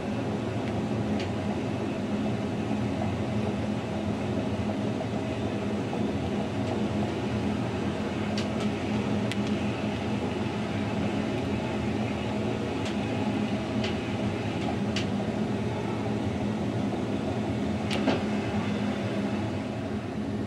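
Narrow-gauge electric train of the Rhaetian Railway running along the track: a steady rolling noise with a low hum, broken by a scattering of sharp clicks from the wheels on the rails, the loudest near the end.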